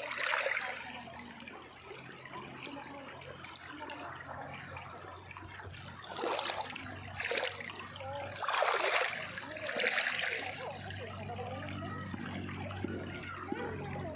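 River water flowing and splashing, a steady rush that swells louder in a few surges about six to ten seconds in.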